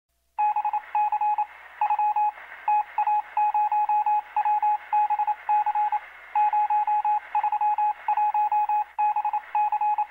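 Rapid electronic beeping, like touch-tone telephone dialing: quick runs of short beeps on the same pair of fixed tones, with brief gaps between the runs, sounding thin as if through a telephone line. It starts about half a second in.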